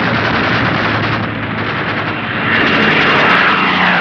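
Propeller fighter aircraft engines droning steadily. The sound swells louder about two and a half seconds in, as a plane passes close.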